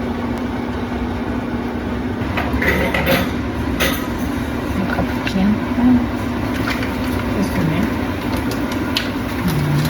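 Spoonfuls of batter for bolinhos de chuva frying in hot oil, a steady sizzling with a few short clinks and pops in the first half.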